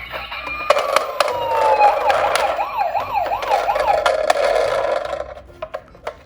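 Electronic siren of a toy emergency vehicle: a falling tone, then a fast wavering wail of about three cycles a second, over clicks and plastic rattling as the toys roll down a slope. It fades out about five seconds in.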